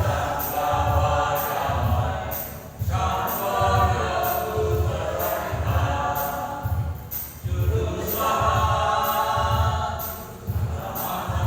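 Elderly church choir singing a hymn in parts, the phrases breaking about every three to four seconds. A steady low beat and a rhythmic high jingle run underneath.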